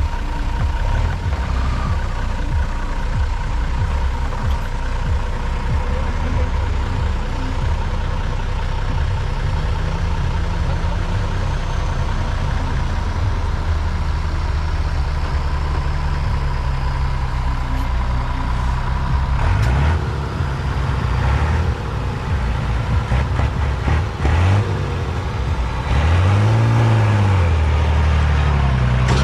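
Off-road trial truck's engine running under load as the truck crawls and climbs through a dirt pit, with the revs rising and falling several times near the end.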